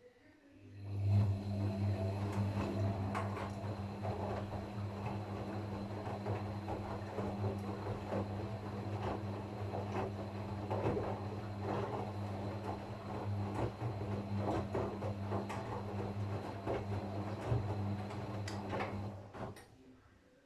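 Gorenje washing machine running in a burst of about eighteen seconds: a steady low hum with a light rattle and clicks over it. It starts about a second in and cuts off near the end, a stop-start typical of a wash cycle.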